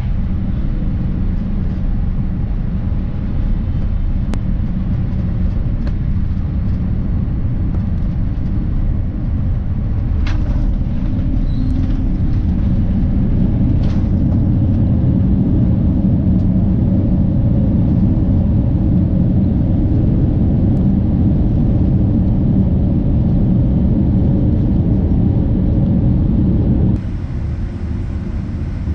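Steady low rumble of a vehicle heard from inside, swelling slightly about halfway through. Near the end it changes abruptly to a thinner, quieter running noise.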